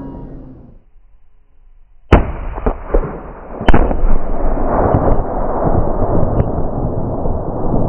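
Tannerite and gasoline explosion: a sharp blast, then a louder second blast about a second and a half later, followed by a long, dense rumble.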